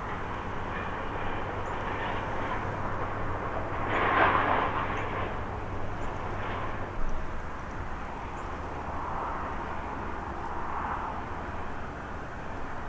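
Steady outdoor background noise: a rushing hiss that swells about four seconds in, over a low hum that fades out about seven seconds in.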